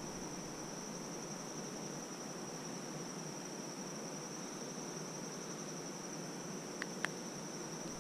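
Steady, high-pitched chorus of insects trilling, with a couple of faint clicks about seven seconds in.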